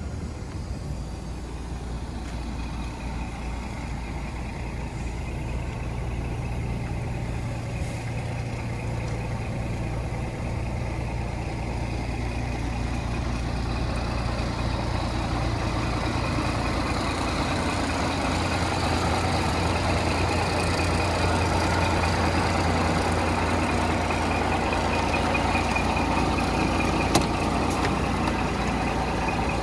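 Scania P420 truck's diesel engine idling steadily, growing gradually louder, with a single sharp click near the end.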